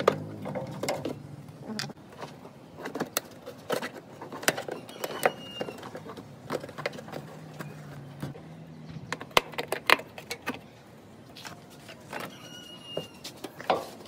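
Irregular plastic clicks and knocks as a screwdriver pries out the retaining clips and the plastic windshield cowl panel is worked loose and pulled up by hand.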